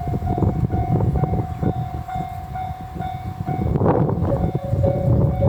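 A JR Central 373 series electric train running through a station-yard level crossing, its wheels rumbling and clacking over the rail joints, louder over the second half. A level crossing alarm keeps ringing as a pulsing tone, which shifts to a lower pitch about four seconds in.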